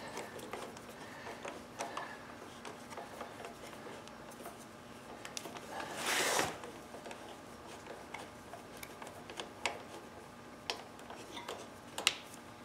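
Faint, scattered clicks and light scraping of a threaded rod and a bolt being turned and handled by hand in the plastic air cleaner housing, with a brief louder scraping rush about six seconds in and a sharper click near the end.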